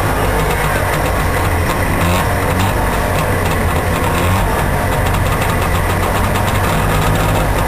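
Trabant engine running steadily at low revs through a modified exhaust, with no revving.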